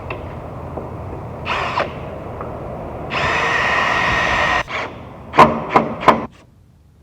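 A power drill runs for about a second and a half, then three sharp knocks follow in quick succession.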